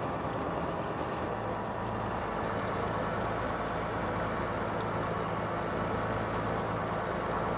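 Fishing boat's engine running steadily at low revs: an even low hum that grows a little stronger about a second in.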